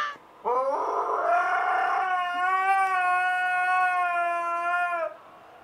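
A dog howling: one long howl that rises at the start about half a second in, then holds a steady pitch for about four seconds before stopping.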